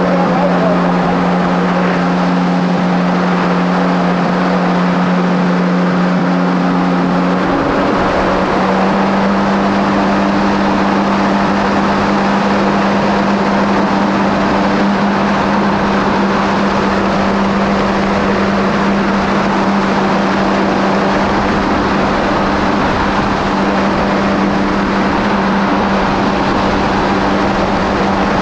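A 2017 Kawasaki SX-R 1500 stand-up jet ski's four-cylinder engine running at steady cruising speed, over a constant rush of water and wind. About eight seconds in, the engine note steps up slightly and then holds steady again.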